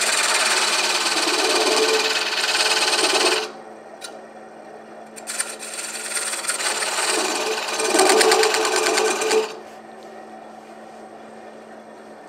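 A small skew chisel cutting the dovetail tenon on a maple platter blank spinning on a wood lathe: two loud cuts with a fast flutter, about three and four seconds long, with a short pause between. The lathe motor hums steadily underneath and is heard alone after the second cut stops.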